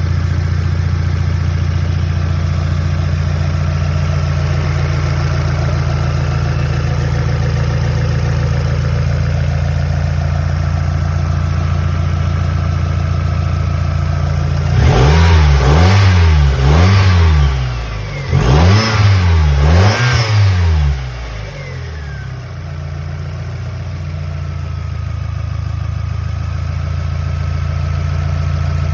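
NB Mazda Miata engine idling steadily, then revved four times in quick blips about halfway through, each rising and falling in pitch, before settling back to idle.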